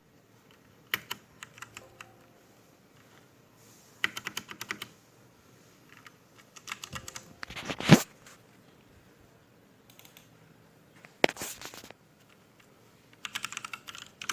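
Keys of a DareU EK87 V2 mechanical keyboard being typed in six short bursts of rapid clicks with pauses between, with one louder stroke about eight seconds in.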